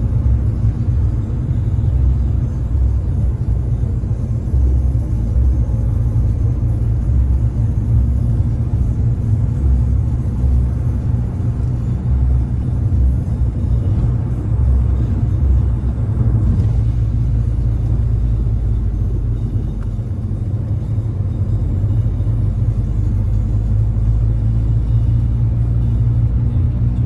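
Inside a Fiat 500 driving on a rain-wet road: a steady low rumble of engine and tyre noise in the cabin.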